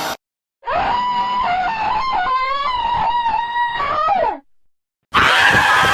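An animated character's high-pitched scream, held for about three and a half seconds with a wavering, bending pitch. After a short silence, a second, louder and harsher scream starts near the end.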